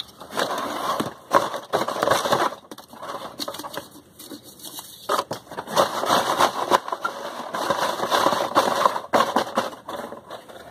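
Cardboard box being torn apart by hand: ripping and crackling tears of the cardboard in several bursts with short pauses between them, the longest run from about five to nine seconds in.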